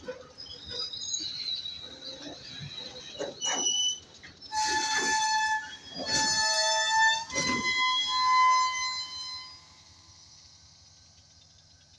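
Wheels of slowly rolling freight boxcars squealing against the rails, several shrill tones together that shift pitch two or three times over about five seconds, with heavy metallic clanks among them. Shorter, fainter squeaks and knocks come first, and the squeal dies away a couple of seconds before the end.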